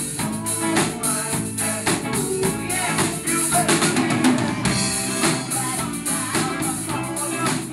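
Live rock band playing loudly, with a drum kit and electric guitars.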